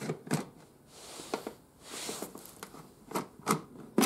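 Scattered sharp clicks and light knocks with brief scraping, as screws and the plastic air filter cover are worked loose on a motorcycle.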